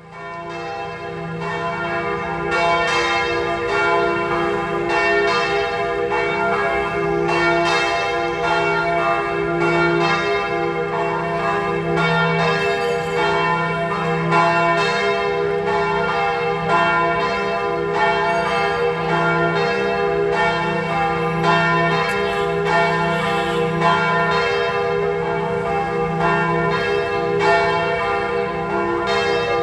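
A partial set of the swinging church bells of St. Joseph's Cathedral, Hanoi, ringing together in a continuous peal. Their overlapping tones pulse with the strokes about once a second. The ringing swells up over the first couple of seconds.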